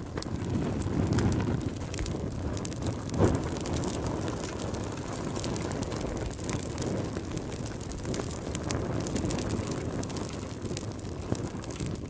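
Wood fire of burning logs: a steady low rumble of flames with frequent small crackles and pops of the wood, one sharper pop about three seconds in.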